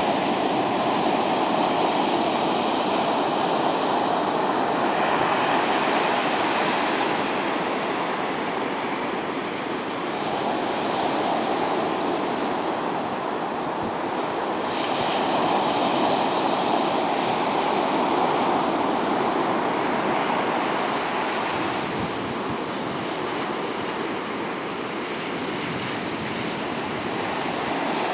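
Small Atlantic Ocean waves breaking and washing up a flat sandy beach: a steady surf rush that swells and eases every few seconds.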